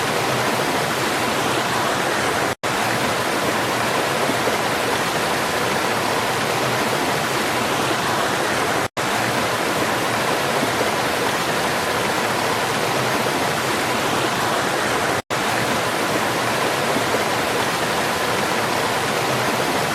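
Waterfall: water falling and rushing in a steady, dense roar. Three brief silent gaps, about six seconds apart, break it.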